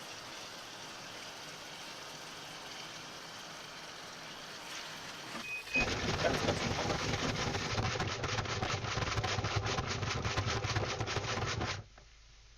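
Washing machine wash cycle heard from a camera tumbling inside the drum: a steady wash of churning water, then about six seconds in a much louder stretch of rapid knocking and sloshing as the camera is thrown about, which cuts off suddenly near the end.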